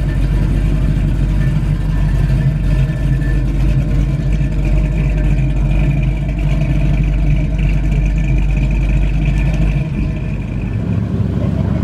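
Dodge Challenger's engine running as the car pulls away at low speed, a steady low exhaust rumble; the deepest part of the rumble drops away near the end as the car moves off.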